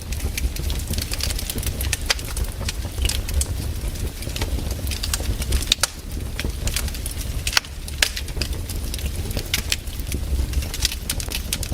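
Wood campfire burning, with frequent irregular sharp crackles and pops of varying loudness over a steady low rumble.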